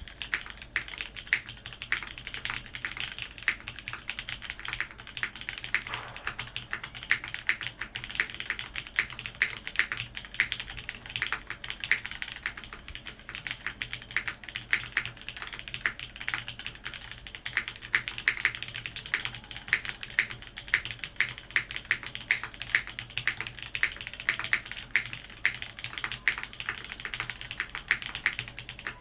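Typing on a TGR 910 65% custom mechanical keyboard with lubed and filmed Cherry MX Retool Black linear switches in an aluminium plate, under GMK keycaps. A fast, continuous stream of keystroke clacks, with some strokes louder than the rest.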